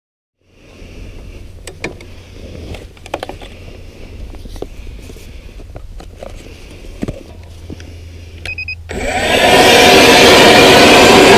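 Clicks and knocks of gear being handled over a low hum. About nine seconds in, a StrikeMaster battery-powered ice auger starts and drills loudly through the ice, a steady motor whine with grinding ice.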